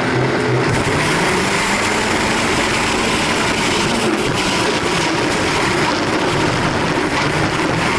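Folkrace car's engine heard from inside the stripped cabin, held at steady revs and then accelerating hard from about a second in, loud and rough.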